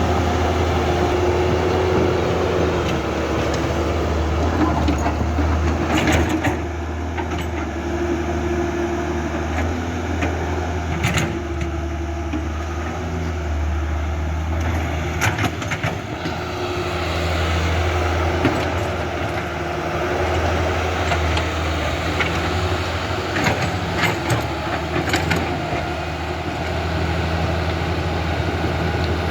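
Toy RC construction machines at work: a steady motor hum with a low drone, broken by a few sharp clicks.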